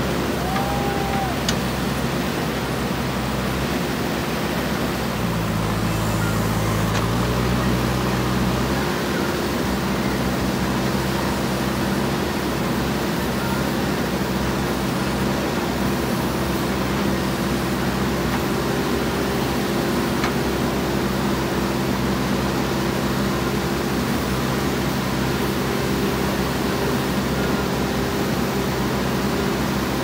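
JCB 3DX backhoe loader's diesel engine running steadily while working, its pitch rising for a few seconds about five seconds in before settling back.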